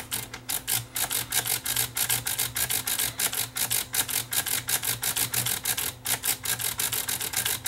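A selector switch on a Technics SU-V9 amplifier, freshly sprayed with DeoxIT contact cleaner, being worked quickly back and forth: rapid, even clicking at about five clicks a second as the switch snaps through its positions, working the cleaner into the contacts.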